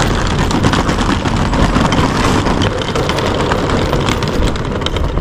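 Wheels of two hard-shell rolling suitcases rattling steadily over brick paving.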